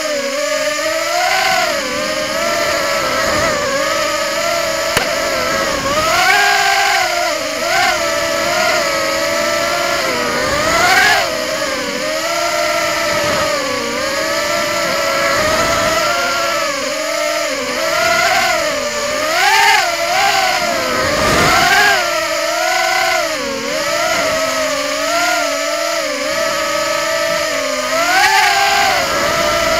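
Lantian 130 FPV racing quadcopter's motors and propellers whining, the pitch rising and falling constantly with throttle changes. Heard through the drone's own onboard camera.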